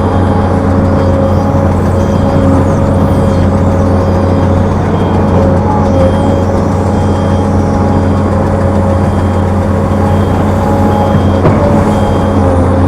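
Heavy diesel machinery engine running steadily at a constant speed, a loud, even low hum that stays unchanged.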